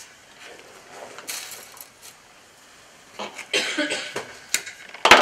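Dried floral materials and tools being handled on a wooden work board: light rustles and small clicks start about three seconds in, followed by one sharp knock near the end.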